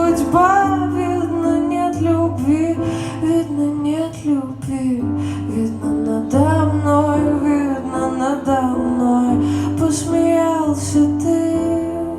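Song playing: a woman's singing voice over strummed acoustic guitar and a steady bass line.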